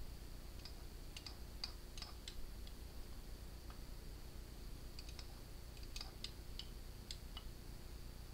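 Light, sharp clicks and ticks of small parts being handled, in two loose clusters, over a steady low electrical hum.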